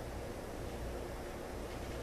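Room tone: a steady hiss with a low hum underneath.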